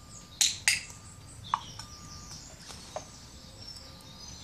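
Two sharp clicks about a quarter of a second apart from a handheld training clicker, then a short chirp and a few fainter chirps from birds.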